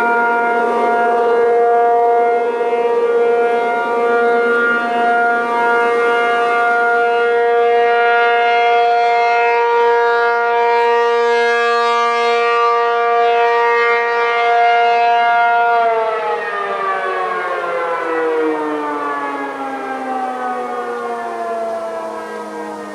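ACA P-50 outdoor warning siren sounding the steady alert tone: a single held pitch with many overtones. About 16 seconds in it winds down, the pitch falling steadily as the rotor slows.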